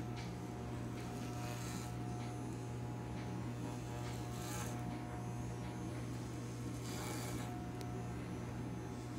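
Corded electric hair clippers with a guard comb running with a steady low hum while cutting hair, with a brief rasping buzz three times as the blades pass through the hair.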